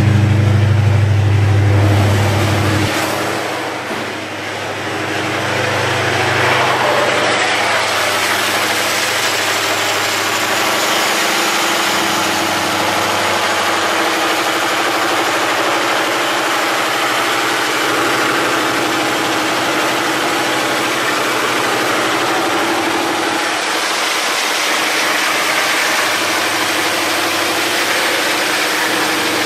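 MTU diesel generator set running steadily. About three seconds in, its deep low hum drops away and the sound dips briefly, then it settles back into a steady engine noise with a constant hum.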